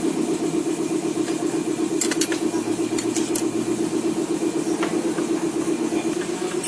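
Yamaha Mio J scooter's single-cylinder four-stroke engine idling steadily with an even pulse, with a few light clicks about two to three seconds in.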